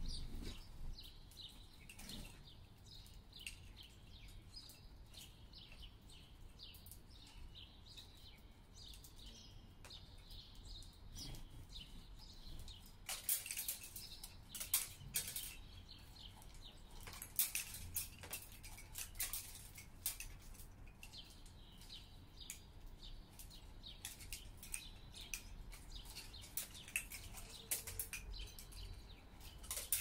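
Sparrows chirping again and again at a wooden balcony bird feeder, with sharp clicks and flutters from the feeding birds that get busier from about halfway through, over a steady low city hum.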